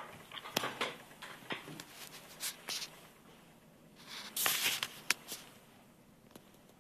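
Handling noises: irregular clicks, knocks and rustling, with a louder scraping rustle about four and a half seconds in and a sharp click just after.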